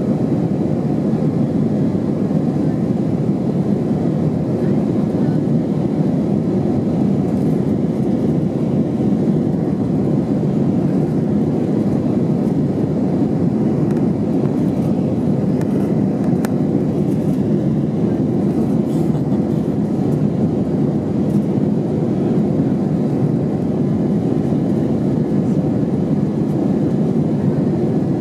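Airbus A319 cabin noise: the engines and airflow make a steady, even noise that holds the same level throughout.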